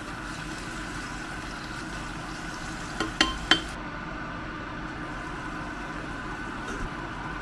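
Steady sizzling hiss of food frying in a pan, with three sharp ringing clinks about three seconds in, like a metal utensil knocking against the pan while stirring.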